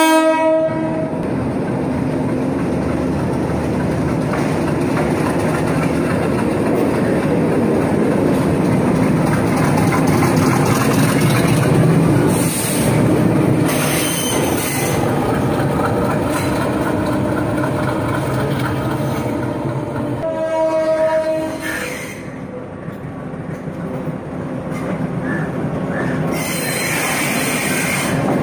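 Sri Lanka Railways Class M4 diesel locomotive running as it moves slowly over the tracks, a steady rumble of engine and wheels, with a horn blast of about a second some twenty seconds in.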